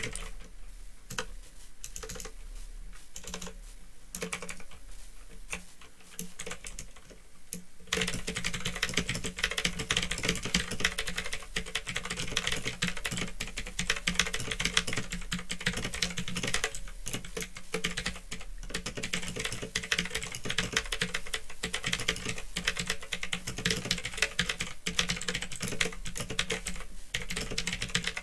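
Typing on a Phantom Tecware 87 mechanical keyboard with clicky Otemu blue switches: scattered keystrokes for about the first eight seconds, then fast, continuous typing. A steady low hum runs underneath.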